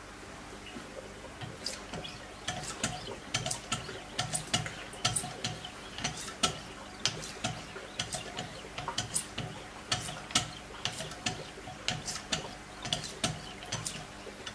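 A Wicked Edge guided sharpener's hone drawn in repeated strokes along the edge of a clamped Spyderco fixed-blade knife, each stroke a sharp scrape-click, about two a second, starting about a second and a half in.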